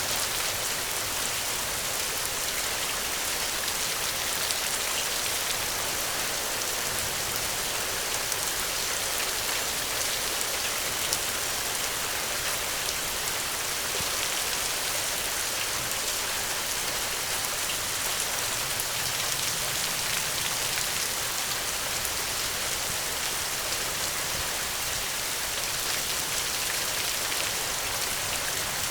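Steady rain falling, an even hiss of many drops with faint individual patters and no thunder.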